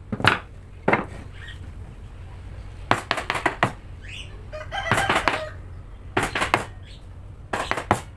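Steel hammer driving a wood chisel into a block of wood, in short runs of quick blows with pauses between, as the chisel chops out a saw handle. A chicken calls briefly about halfway through.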